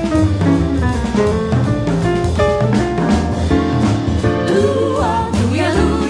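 Jazz combo of piano, double bass and drum kit playing, with the drummer working the cymbals. Voices of the vocal group glide in about five seconds in.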